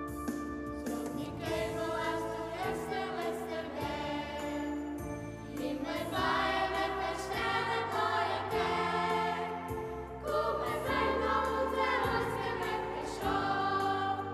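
A choir of young voices singing a slow piece in long held notes, with steady low notes sounding beneath the voices.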